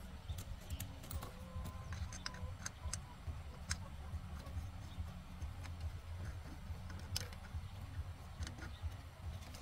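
Irregular light clicks and taps of tools and parts being handled in motorbike repair work, over a low steady hum.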